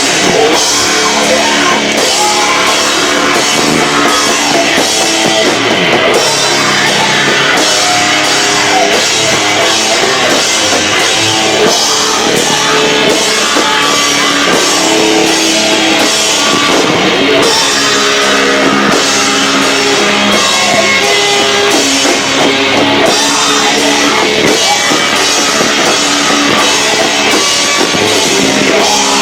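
Loud live rock band with distorted guitars and a drum kit playing at full volume. The sound is distorted and overloaded, as the camcorder's built-in microphone cannot handle the volume.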